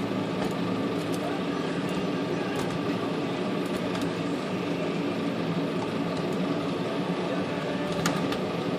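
Steady mechanical hum in the workshop, with a few faint clicks as metal typewriter parts are worked into place.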